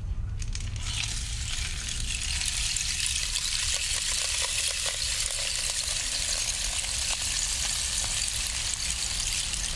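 Rainstick: a long bamboo tube being tipped upright, its fill trickling down inside in a steady rushing hiss with scattered small clicks, over a low rumble.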